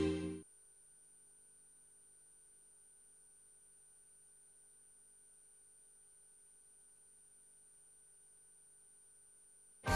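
Electronic title music fades out within the first half second, followed by near silence with only a faint steady hum. Music starts again right at the end.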